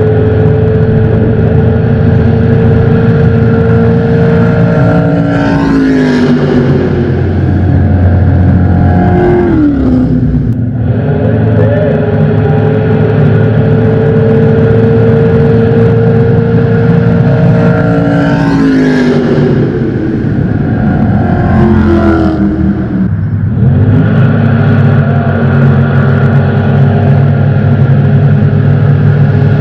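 Racing jet boat engines running hard at high revs, the pitch dropping sharply about four times as they back off the throttle, over a steady deep rumble.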